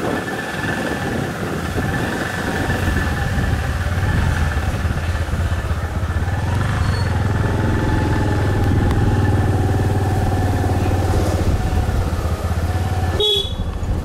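Motorcycle engine running under way, heard from the pillion seat; it grows louder a few seconds in and holds steady, then drops away sharply near the end, where a short beep sounds.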